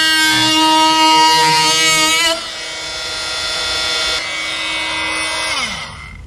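Cordless oscillating multi-tool with a Starlock plunge blade cutting into a wooden plank around the edge of a mortise: a loud, steady, high buzzing whine. About two seconds in it drops in level. Near the end the tool is switched off and its pitch slides down as it winds to a stop.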